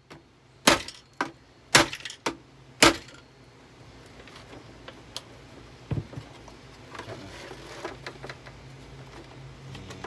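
Five sharp blows on a Kenmore canister vacuum cleaner's plastic canister, close together over about two seconds. About six seconds in comes one more thud, followed by light handling clatter.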